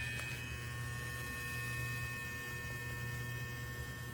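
Cordless electric pet nail grinder from a oneisall grooming kit running steadily: a quiet, even motor hum with a steady high whine over it.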